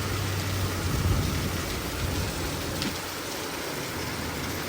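Heavy rain pouring down, a steady hiss of falling water. A low steady hum underneath fades out about a second and a half in.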